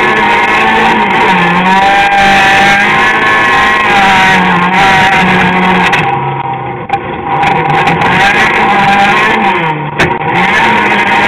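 Citroën AX rally car's engine heard from inside the cabin, revving hard, its pitch climbing and dropping again and again with gear changes. It eases off about halfway through, then pulls again, with a short knock near the end.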